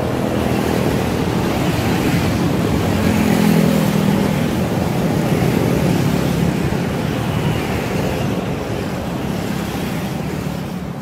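Road traffic noise from a stream of motor scooters passing on the road, with engine hum swelling as one passes close about three to four seconds in, then easing off toward the end.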